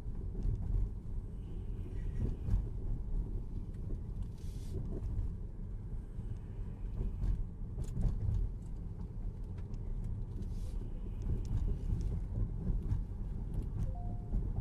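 Car driving along a city street, heard from inside the cabin: a steady low rumble of engine and tyres on the road.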